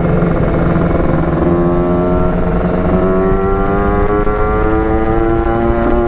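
Two-stroke engine of a Kawasaki Ninja 150 RR running under load. It pulls at a steady pitch at first, then rises slowly and evenly as the bike accelerates.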